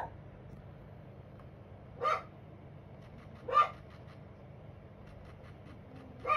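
A dog barks twice, short single barks about a second and a half apart. Faint light clicks from tapping on the tablet's on-screen keyboard follow, over a low steady hum.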